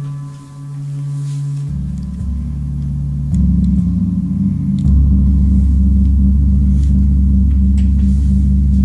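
38-inch Paiste Earth Year planet gong, tuned to C sharp (136.10 Hz), played with a soft felt mallet. It gives a deep, humming drone that swells in steps with fresh strokes, about two, three and a half and five seconds in, and then rings on loud and steady.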